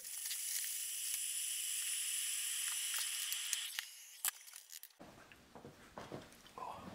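Electric kettle hissing steadily, stopping about three and a half seconds in, followed by a couple of sharp clicks.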